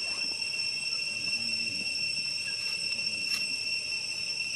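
Steady high-pitched drone of insects, unchanging in pitch and level, with a single sharp click about three seconds in.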